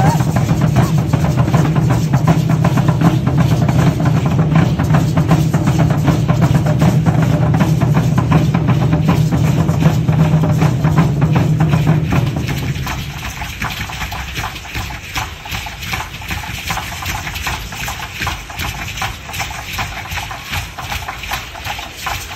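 Aztec dance percussion: a fast, steady drumbeat with a deep drum under dense clattering strokes. The deep drum drops out a little over halfway through, leaving a lighter, quieter rapid beat.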